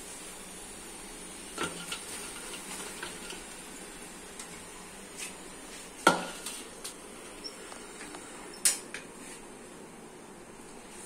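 Metal skimmer clinking against a steel karahi and a steel mixing bowl as fried potato chips are scooped out of the oil and tipped into the bowl. There are a few sharp clinks, the loudest about six seconds in and another near nine seconds, over a steady faint hiss.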